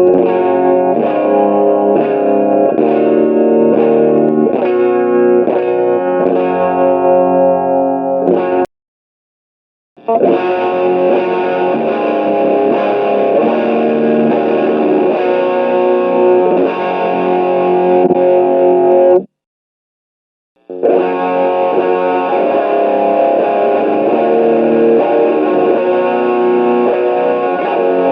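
Electric guitar with a humbucker pickup, played through a Boss overdrive pedal into a simulated Fender Deluxe amp. There are three short takes, each cut off cleanly by a second or so of silence: the first has evenly spaced picked notes, and the later two have denser, ringing playing.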